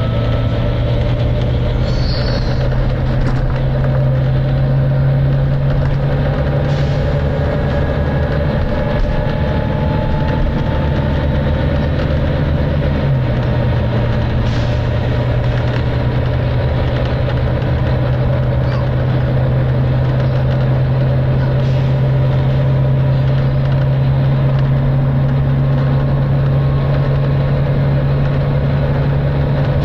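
Volvo B9TL double-decker bus's diesel engine running hard under load at speed, heard from inside the bus. A steady, loud low drone that steps down suddenly in pitch about 13 seconds in and again near the end.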